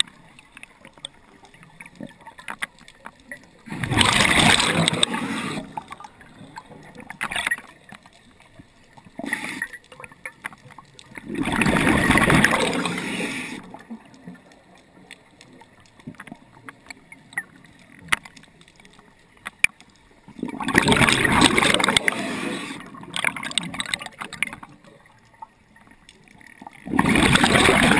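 A diver breathing out underwater: bubbles gurgling and rushing past the camera in four bursts of a second or two, about eight seconds apart, with fainter breathing noise between.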